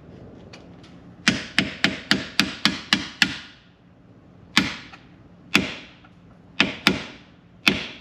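Hammer striking a pin punch to drive out the brake pad retaining pins of a Dodge Charger Hellcat's SRT front brake caliper. A quick run of about eight sharp metallic taps, about four a second, then five slower, spaced blows, each ringing briefly.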